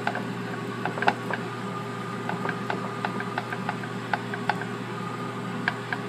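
Small irregular clicks and crackles as fingers press and handle crispy almond-flour-breaded catfish fillets on a plate, over a steady low background hum.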